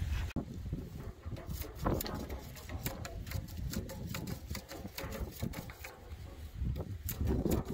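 A machete blade scraping and knocking along a dry cane pole, trimming it, in quick irregular clicks and scrapes.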